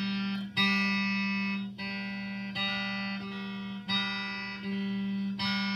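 Stratocaster-style electric guitar strumming chords, each left to ring about a second before the next strum, about six in all.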